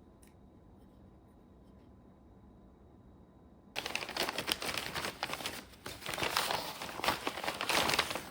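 Packaging crinkling and rustling as it is handled or unwrapped, starting abruptly about four seconds in as a dense crackle of rapid small clicks.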